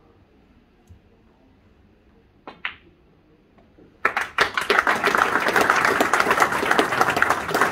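Snooker cue strikes the cue ball, which clicks into an object ball about two and a half seconds in. About a second and a half later the audience applauds loudly, and the clapping keeps going.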